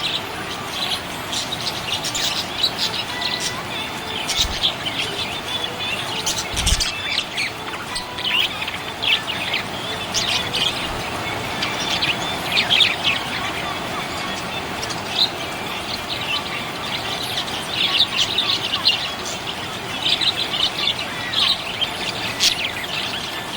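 Budgerigar chirping and chattering in quick clusters of short, high chirps and trills, with brief pauses between clusters. A soft low thump about seven seconds in.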